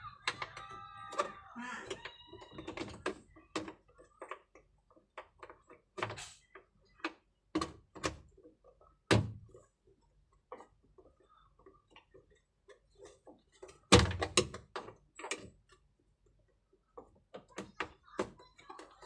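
Irregular clicks and knocks of a tool prying at a washing machine's plastic pulsator, with a few louder thunks about halfway through and again later. A cat meows over the first couple of seconds.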